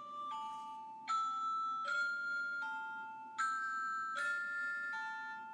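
Outro music: a bright, chiming melody, with a new note or chord struck about once a second.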